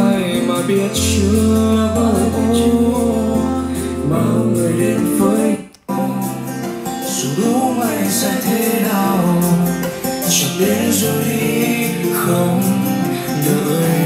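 A song with singing and guitar, played through a portable Bluetooth speaker. The music cuts out briefly about six seconds in, then carries on from the Braven XXL/2 speaker.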